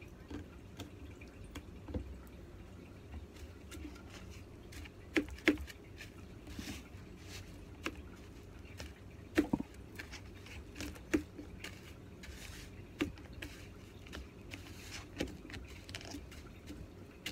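Hands pressing raw pork chops into breadcrumbs in a plastic tub: soft crumbly rustling broken by scattered sharp taps and knocks against the container, the loudest a few around the middle.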